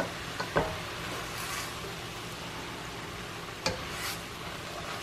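Sausage, shrimp and shredded cabbage sizzling in a stainless steel skillet while being stirred with a spatula. The spatula knocks sharply against the pan at the start, twice about half a second in, and once after about three and a half seconds.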